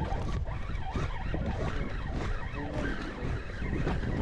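Low, steady rumble of wind buffeting the microphone aboard a boat at sea.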